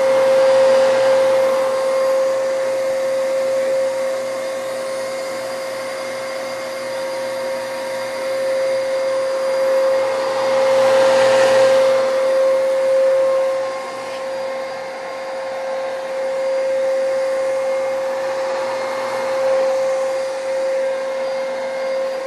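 Vacuum cleaner running steadily with a high motor whine over a rushing hum, growing louder about a second in and again around the middle.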